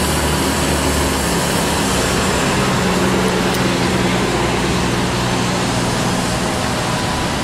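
Steady city street traffic noise, with the low, even hum of a vehicle engine running.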